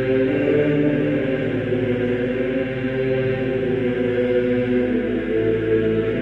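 Background music of slow, wordless-sounding vocal chanting with long held notes over a steady drone.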